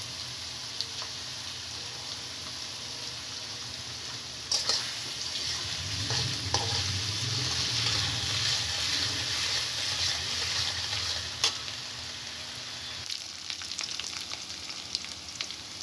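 Sliced onions sizzling in hot oil in a metal kadai as they fry down to brown, stirred with a metal spatula that scrapes and knocks against the pan. The sizzle swells louder in the middle, with a few sharp spatula knocks, then settles into a quieter crackle with light ticking near the end.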